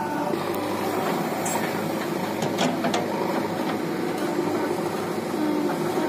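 Diesel engines of a Mahindra Arjun 555 tractor (four-cylinder) and a JCB 3DX backhoe loader running steadily, with a few short clanks about two to three seconds in.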